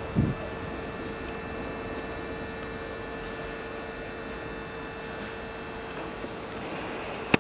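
Steady electric hum with a held mid tone and a faint high whine, typical of a Newag Griffin EU160 electric locomotive's transformer and converters running as it creeps along the platform. A brief low thump just after the start.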